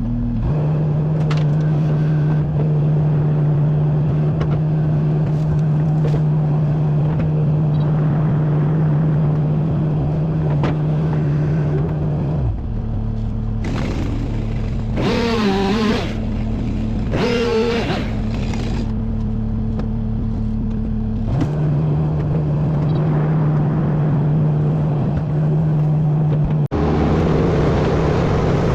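Wood chipper's engine running with a loud, steady hum. Around the middle the hum changes for several seconds and a wavering higher tone comes and goes twice; near the end a rougher, noisier sound joins in.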